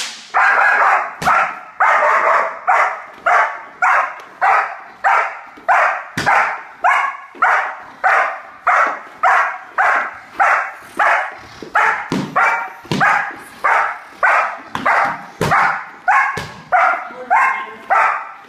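A German shepherd-type dog barking steadily at the decoy in bitework, a little under two loud barks a second.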